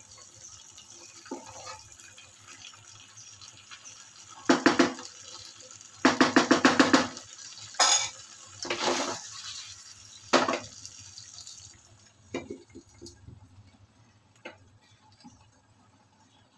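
Chicken in a thick creamy gravy hissing steadily as it cooks in a pan, with a spatula scraping and knocking against the pan in a quick run of strokes. The hiss stops about twelve seconds in, and a few light knocks follow as the pan is covered with a glass lid.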